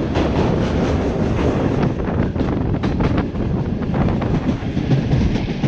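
Passenger train running along the track: a steady rumble and hiss with frequent irregular clicks and knocks of the wheels and carriages.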